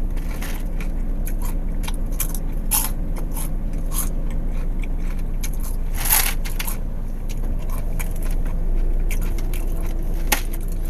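Caramel popcorn being crunched and chewed close to the microphone, with irregular crackles and scrapes. A steady low hum lies underneath.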